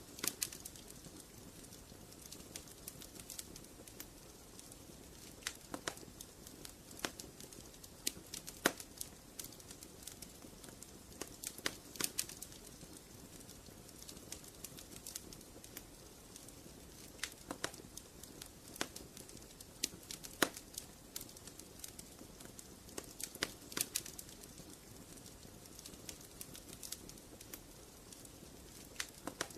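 Wood fire burning in a fireplace and crackling: irregular sharp pops and snaps, a few of them louder, over a faint steady background of the flames.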